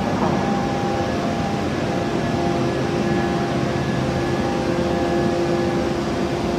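Steady hum of automatic forging-line machinery, a few steady tones held over an even noise.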